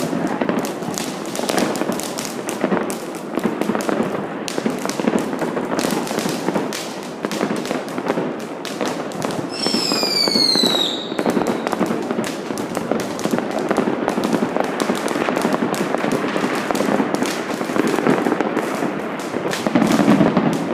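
New Year's fireworks and firecrackers going off in a continuous barrage of bangs and crackles. About ten seconds in, a whistling firework gives a short falling whistle.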